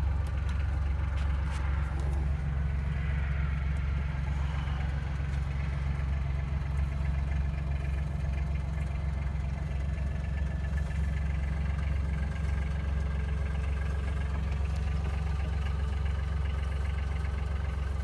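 Bobcat mini excavator's diesel engine running steadily, heard from the operator's seat.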